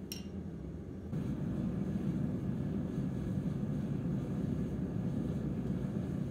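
A short metallic clink at the start, then from about a second in the steady roar of a gas forge's burner heating an axe head, here for normalizing.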